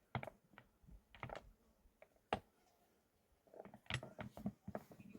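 Scattered light clicks and knocks, irregularly spaced, with a quicker cluster of them in the second half.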